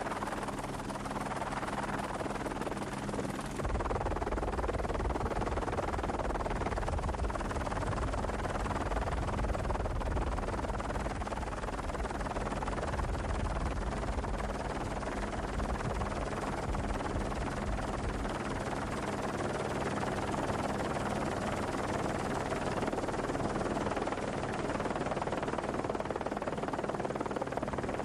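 Steady drone of a helicopter with rushing wind, holding a few steady low tones. A deeper rumble cuts in abruptly about four seconds in and dies away around eighteen seconds.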